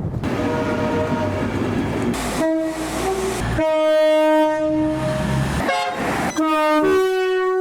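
A train rumbles along the track, then a locomotive air horn sounds: a short blast, one long held blast, and more blasts near the end.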